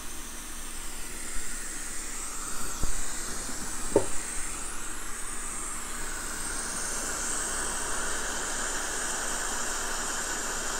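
Hot-air rework station blowing a steady hiss of air onto the circuit board, filling out about halfway through, as it heats a shorted MOSFET to desolder it. A few light knocks sound in the first four seconds.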